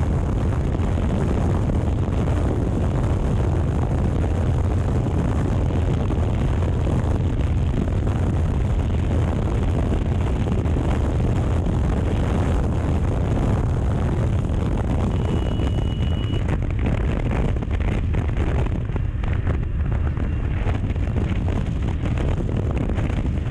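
Motorcycle riding at speed, recorded on a bike- or helmet-mounted camera: steady wind rush on the microphone over engine and road noise. A short high beep sounds about fifteen seconds in.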